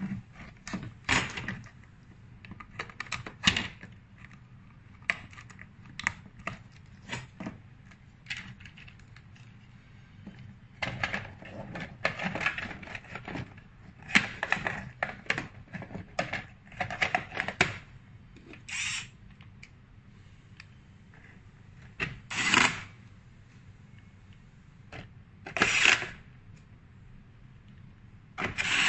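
Irregular clicks, knocks and scraping from hands handling and fitting the plastic housing of an LED par light, with several longer scrapes lasting about a second each.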